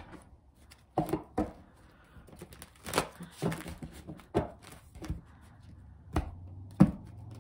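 A deck of tarot cards being shuffled by hand: irregular soft clacks and taps of the cards.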